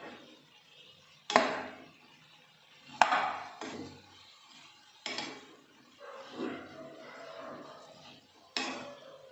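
Steel spoon stirring shredded cabbage and potato cubes in a non-stick frying pan, knocking sharply against the pan four times between quieter scraping and rustling of the vegetables.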